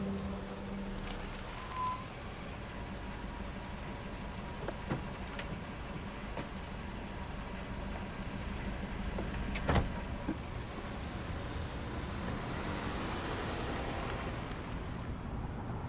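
Car engine running as a taxi pulls up and idles, a steady low rumble throughout. One sharp knock about ten seconds in, with a few fainter clicks around it.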